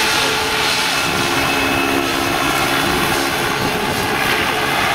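Radio-controlled scale model of an AS 332M1 Super Puma helicopter in flight: a steady rotor and drive noise with a few held tones running through it.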